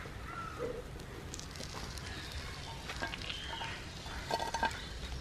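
Prawn and vegetables sizzling steadily on a hot griddle, with a few light clicks of steel tongs against a plate near the end as the grilled prawn is lifted off.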